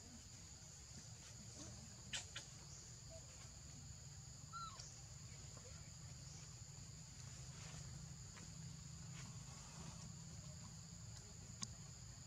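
Steady high-pitched insect chorus with a low rumble underneath and a few faint clicks.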